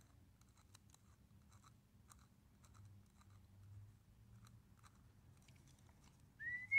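Faint small clicks and scratches of a small screwdriver turning a brass screw into a wooden part. Near the end a person starts whistling a tune, the loudest sound here.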